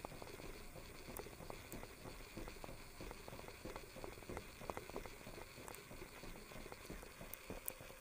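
Footsteps walking on a hard concrete corridor floor: a soft, irregular patter of steps and small taps.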